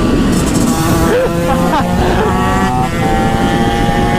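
TM SMR 125's two-stroke engine with an HGS aftermarket exhaust, running at a mostly steady engine pitch while riding along, mixed with wind noise on the microphone.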